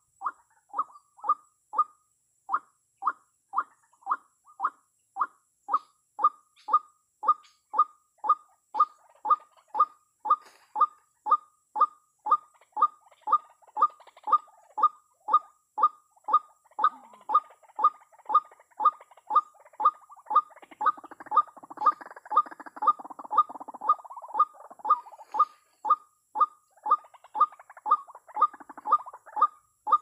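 White-breasted waterhen call, a short note repeated about twice a second with machine-like regularity, as from a lure recording played to draw the birds to the snares. In the second half a softer, rougher noise rises under the calls for several seconds.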